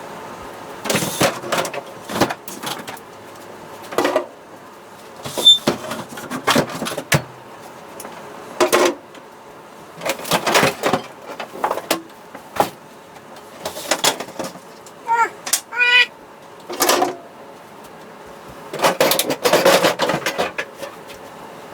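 Irregular clatter, knocks and rustling of food containers and jars being handled while a fridge is cleared out, with a brief voice sound about fifteen seconds in.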